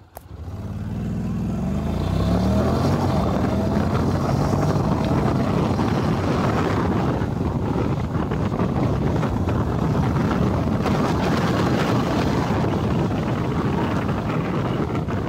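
Honda NC750X's parallel-twin engine accelerating hard with its dual-clutch transmission in Sport 3 mode. The engine note climbs in pitch over the first couple of seconds, then a steady rush of wind on the microphone at speed largely covers it.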